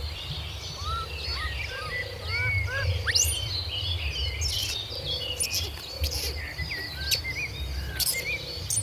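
Many short, high chirping calls from animals in quick succession, over a steady low rumble.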